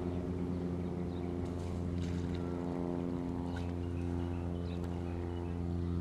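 An engine running steadily, giving an even, unchanging drone, with a few faint high chirps over it.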